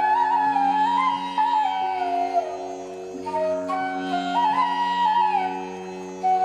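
Background instrumental music: a flute plays a slow, gliding melody in two phrases over a steady drone.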